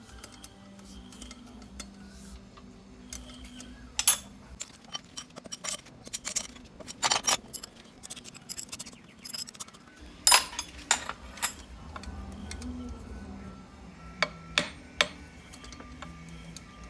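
Sharp metallic clinks and knocks of steel parts in irregular clusters, loudest about 4, 7 and 10 seconds in, over quiet background music.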